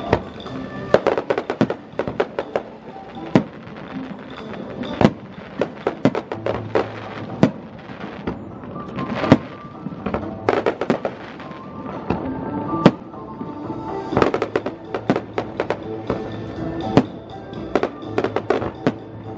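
Aerial fireworks shells bursting in quick, irregular volleys of sharp bangs, some clustered several to a second, with music playing underneath.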